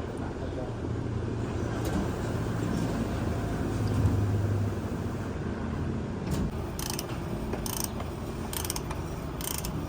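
Ratchet wrench clicking in short strokes, about one a second, during the last few seconds, over a steady low rumble.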